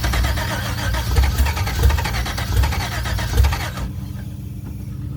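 LS V8 in a Nissan 240SX cranking on its starter without catching, with uneven heavier low pulses; the cranking stops about four seconds in, leaving a steady low hum. The engine will not fire because, as the owner judges, it is not getting fuel.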